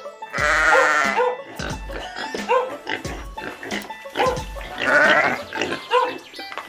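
Sheep bleating over background music with a steady beat: two long, wavering bleats, one about half a second in and one about five seconds in.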